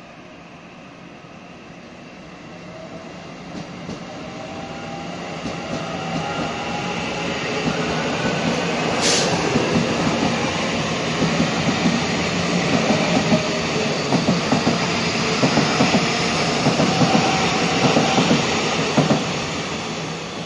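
Taiwan Railways EMU900 electric multiple unit pulling out of the station and speeding up, growing louder over the first several seconds, with a faint electric motor whine that glides in pitch. Its wheels clack over rail joints and points through the second half. The sound cuts off abruptly at the end.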